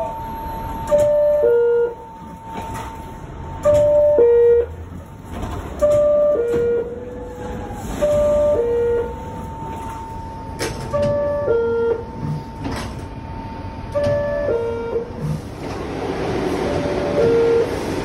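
R62A subway car door chime sounding about seven times, each one a two-note descending ding-dong, a few seconds apart. A steady high tone runs underneath, and rushing noise grows louder over the last few seconds.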